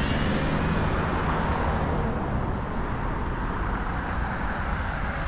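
Steady road traffic noise from a city street.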